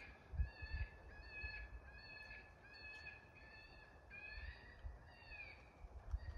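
A steady run of raspy, crow-like caws, about two a second, with a pause near the end. Wind buffets the microphone with low thumps, loudest about half a second in.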